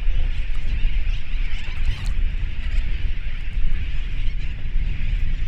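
A large flock of seabirds calling all at once: a dense, continuous clamour of many overlapping cries over a steady low rumble.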